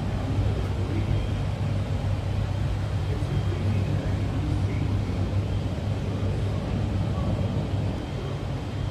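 Steady low rumble and hum of indoor background noise, even in level throughout.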